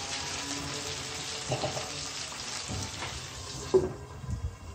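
Chicken pieces sizzling in oil and a little water in a wok set to simmer on low heat. Near the end a glass lid is set on the pan with a clank, and the sizzle then cuts out.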